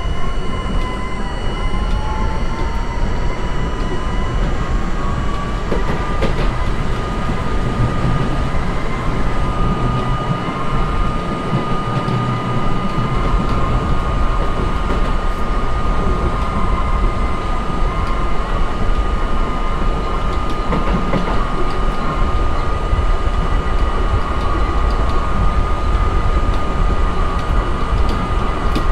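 R32 subway train running on the rails, a steady loud rumble and clatter of wheels on track. Over it the traction motors whine, rising in pitch for the first several seconds as the train picks up speed, then holding one steady pitch as it cruises.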